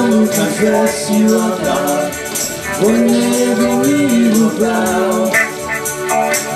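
Live worship song: two men singing in a man's range, with held, gliding notes, over electric guitars and a light, steady percussion rhythm.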